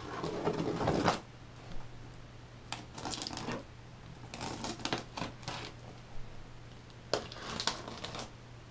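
Packing tape on a cardboard shipping box being slit with scissors and torn loose, in several short rasping bursts; the first and loudest lasts about a second.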